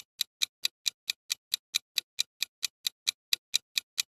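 Countdown timer sound effect: a clock ticking evenly and quickly, about four to five ticks a second.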